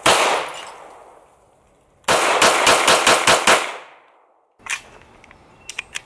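Hi-Point .40 S&W pistol firing: one shot with a long fading echo, then about two seconds later a quick string of about seven shots. Near the end come a few faint metallic clicks as the pistol is handled.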